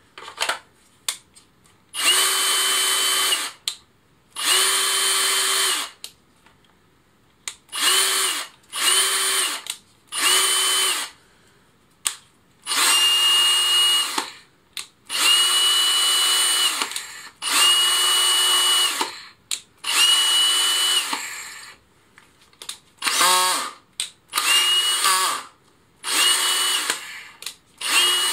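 Workzone Titanium+ cordless drill motor run with no load in about a dozen short trigger bursts, each one to two seconds long with quiet gaps between. Most bursts hold a steady high whine at full speed. One burst a little past the middle wavers in pitch as the trigger is eased.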